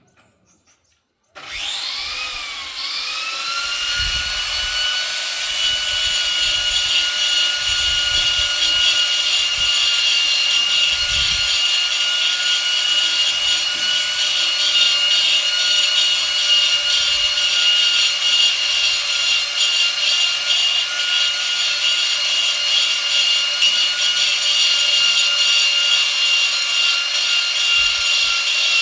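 Electric angle grinder starting about a second and a half in, its whine rising and settling at a steady pitch, then running continuously while cutting stone.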